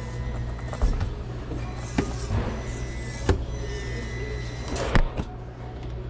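A small 1/18-scale Traxxas TRX-4M RC crawler working over a hard crawl course: four sharp knocks, the loudest near five seconds in, over a steady low hum, with music in the background.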